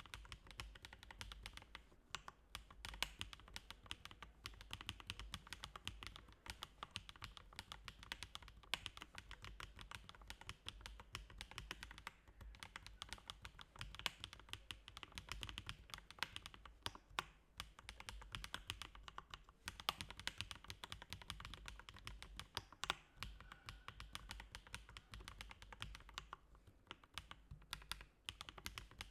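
Fast, steady typing on a Lelelab Scorpio 46 mechanical keyboard fitted with Chosfox White Fox v2 linear switches and PBTfans X-Ray PBT keycaps: a dense stream of quick key clacks with a few short pauses.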